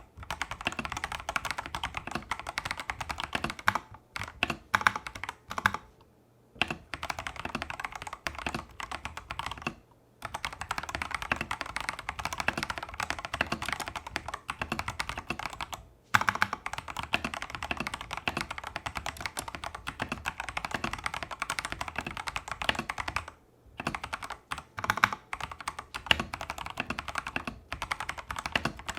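Tester68 mechanical keyboard with clone Holy Panda tactile switches (stock, factory-lubed) and XDA-profile keycaps being typed on in quick, continuous runs of keystrokes. The typing breaks off briefly about six, ten, sixteen and twenty-three seconds in.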